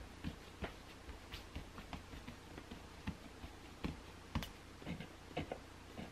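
Fingertips pressing and patting very soft, floured bagel dough against a wooden cutting board: irregular soft taps and dull thumps, a few a second.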